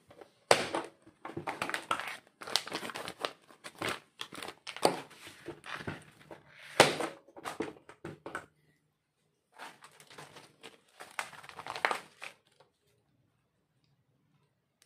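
Plastic vacuum-sealer bag crinkling and rustling as it is handled, in irregular crackles. There are two spells with a short break between them, and the sound stops about two seconds before the end.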